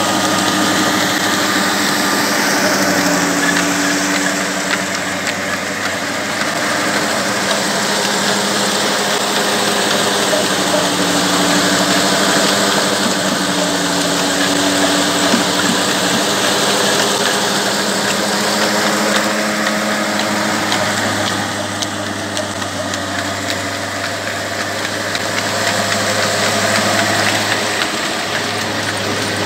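Old 25 hp horizontal stationary diesel engine running steadily, driving line shafts, flat belts and pulleys that power several belt-driven mill machines. The engine's hum and the machinery's clatter blend into one continuous din.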